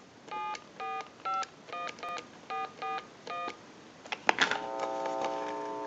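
Touch-tone (DTMF) beeps as a number is keyed on a Telemania duck telephone's keypad: about eight short dialing tones in quick succession, then a click and a steady tone.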